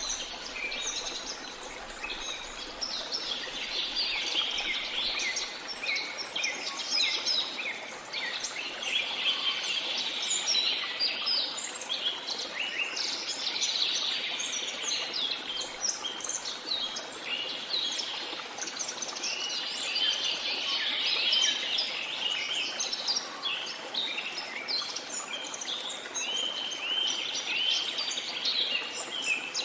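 A dense chorus of many songbirds chirping and trilling continuously, calls overlapping one another, over a steady background hiss.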